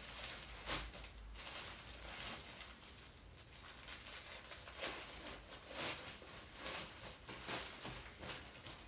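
Thin clear plastic packaging crinkling and rustling at irregular moments as folded T-shirts inside it are handled.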